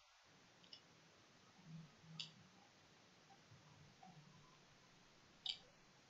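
Near silence with a few faint computer mouse clicks, the loudest near the end.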